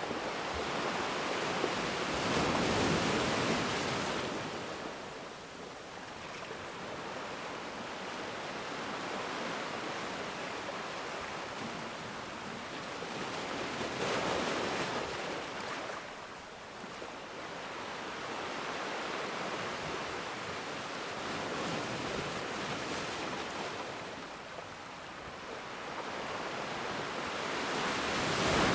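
Ocean waves breaking and washing on a shore, a steady rush of surf that swells and falls back in slow surges, the loudest about three seconds in, near the middle and at the end.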